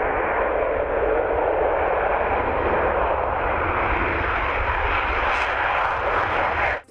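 Jet aircraft engine sound effect: a steady rushing noise that cuts off suddenly near the end.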